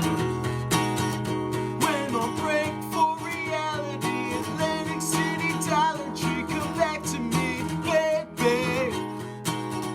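Background music: a strummed acoustic guitar with a wavering melody line over it from about two seconds in until near the end.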